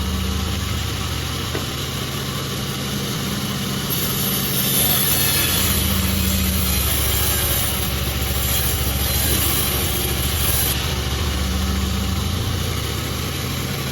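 Sawmill machinery running steadily with a low engine drone. A higher hiss joins about four seconds in and cuts off sharply a few seconds before the end.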